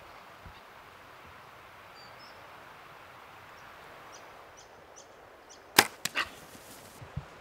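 A bow being shot at a boar: a single sharp crack of the release about six seconds in, followed within half a second by two quicker knocks as the arrow strikes. The steady rush of creek rapids runs underneath, with faint bird chirps.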